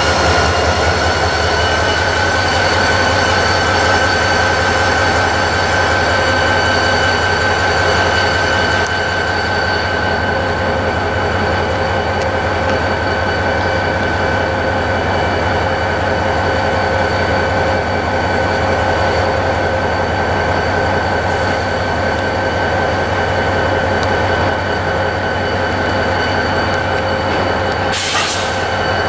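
Freight train cars rolling past, their wheels squealing steadily in several high ringing tones over the low rumble of the train. A short burst of hiss comes near the end.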